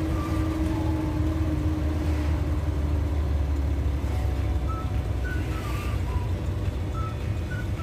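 Suzuki Carry's engine running steadily while driving, heard from inside the cabin along with road noise; its note sinks a little as it eases off.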